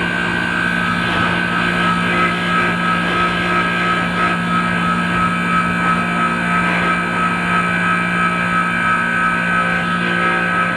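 Manitowoc ice machine running, its compressor and fan giving a steady hum with a couple of high steady tones over it.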